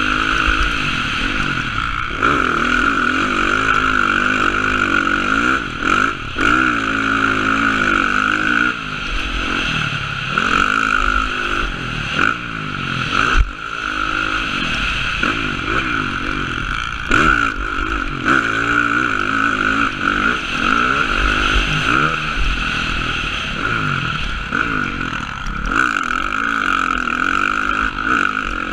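Motocross dirt bike engine revving up and down over and over as the rider works the throttle through the track, heard from a helmet-mounted camera. The pitch climbs and falls every second or two, with several brief throttle chops.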